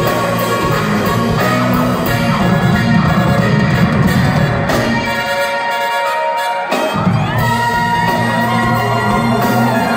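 Live funk band playing at full volume. Near the middle the bass and drums drop out for about a second and a half while a held higher note carries on, then the full band comes back in.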